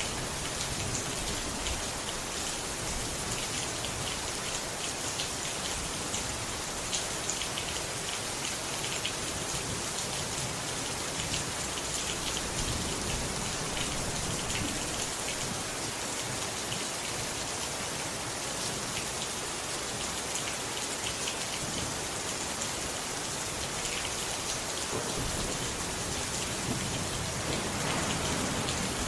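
Steady rain falling, an even hiss with many small drops pattering.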